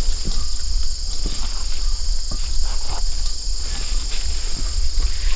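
A steady high chorus of insects such as crickets, over a strong low rumble on the microphone, with scattered small clicks and rustles.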